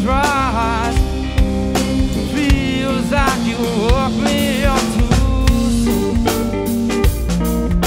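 A live band plays an original song: a drum kit with a snare and rimshot backbeat, bass and electric guitars, and a wavering melody line over the first half.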